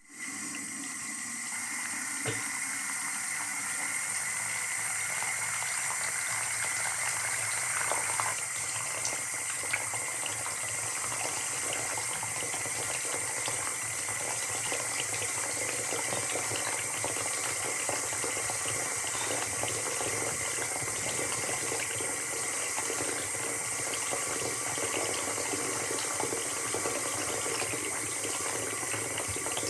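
Water pouring in a steady stream into a sink.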